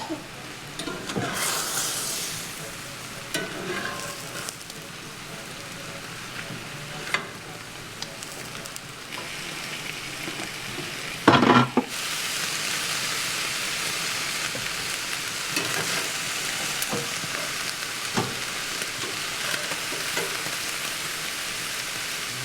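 Food sizzling and frying in a hot pan, with scattered small clicks of stirring. About halfway through there is a sharp clatter, after which the sizzling is louder and steady.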